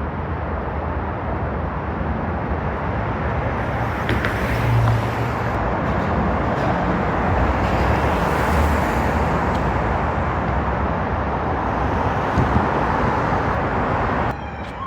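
Heavy freeway traffic: a steady wash of tyre and engine noise from many vehicles, with louder passing vehicles swelling and fading.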